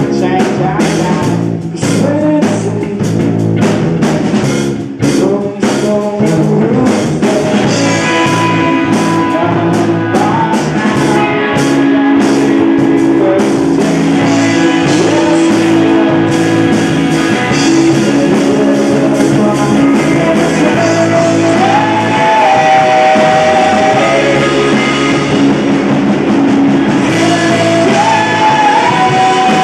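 Rock band playing live with electric guitars, bass and drum kit, and a voice singing. Drum hits stand out in the first few seconds; later, a held melody line sits over the band.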